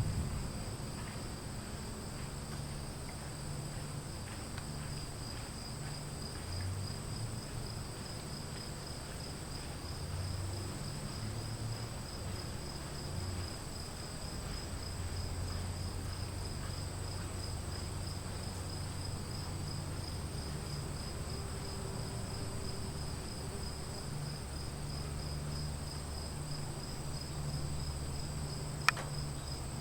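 Insects chirring steadily, with a fast pulsing high trill, over a low rolling rumble of distant thunder in a storm ambience. A single sharp click sounds near the end.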